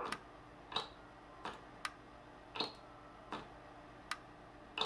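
A series of about eight sharp ticking clicks, roughly one every three-quarters of a second but not perfectly even, over a faint steady hum.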